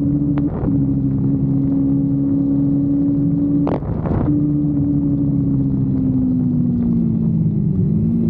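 Kawasaki Versys-X 250's parallel-twin engine running under way, its note broken briefly twice by short gaps, then the revs falling slowly as the bike slows and picking up slightly near the end.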